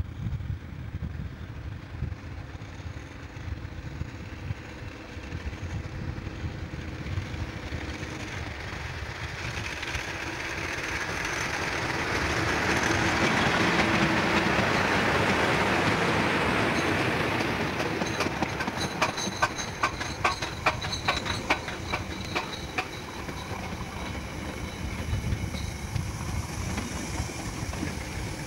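Class 37 diesel-electric locomotive approaching and passing close by, its English Electric engine growing louder to a peak about halfway through and then fading. A rapid run of clickety-clack from the wheels of the following train of former London Underground tube cars crossing the rail joints follows.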